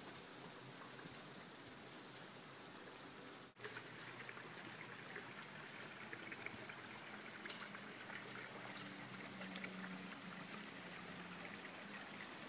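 Faint, steady outdoor rushing noise with scattered light ticks, broken by a short dropout about three and a half seconds in.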